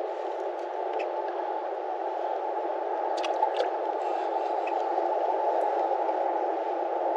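Steady, muffled rushing of wind on the microphone, with two faint clicks a little over three seconds in.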